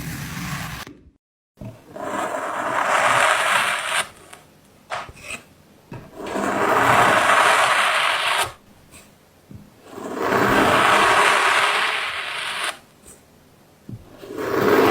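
Repeated long scraping strokes, four in all, each lasting two to three seconds with short quieter gaps between.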